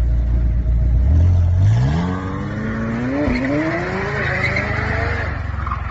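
McLaren supercar accelerating hard from low revs: the engine note climbs steadily, dips briefly about three seconds in, then climbs again. Tyre noise hisses over the engine as the car pulls away.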